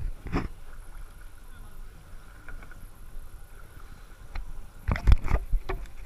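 Kayak paddle working the water: splashes and drips from the blades, with a cluster of louder splashes and knocks about five seconds in.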